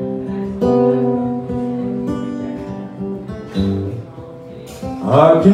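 Acoustic guitar played solo, chords strummed and left ringing with a few chord changes, as an instrumental passage between sung lines.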